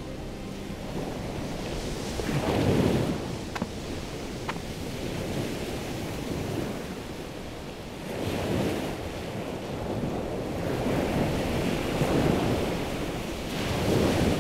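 Ocean surf breaking on the shore, a steady wash that swells as each wave crashes: once about two and a half seconds in, then again a few times later, with another big one near the end.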